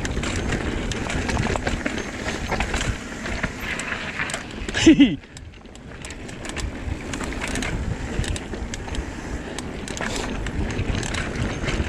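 Trek Fuel EX 7 mountain bike descending dirt singletrack: tyres rolling over dirt and rock with constant small rattles and clicks from the bike. About five seconds in comes one short, loud sound falling in pitch, and the riding noise drops for a moment just after it.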